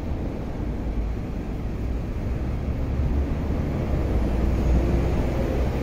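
Steady low rumble of outdoor background noise, growing slightly louder in the second half.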